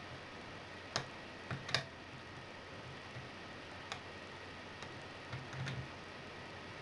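Irregular, sharp metallic clicks and ticks of a lock pick working the pin stack of a MILA Evolution euro profile cylinder under tension, about eight scattered clicks with the loudest bunched together between one and two seconds in.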